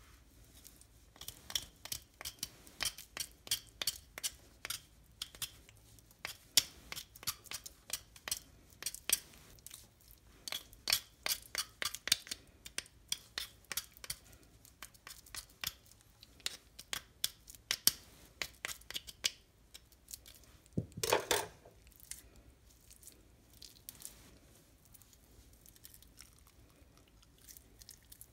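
Small knife cutting and scraping the skin and tendons away from the bone ends of raw chicken drumsticks, a fast run of sharp clicks and tearing snips, as the drumsticks are trimmed into lollipops. About three-quarters of the way in comes one louder, lower, longer sound, and after it only soft handling of the wet meat.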